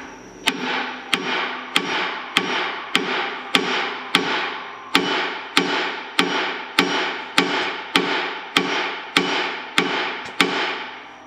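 Short sledgehammer striking steel repeatedly as a new center-pivot bearing is driven into the loader frame's bore. The blows come at a steady pace of about one every 0.6 seconds, about eighteen in all, each with a brief metallic ring.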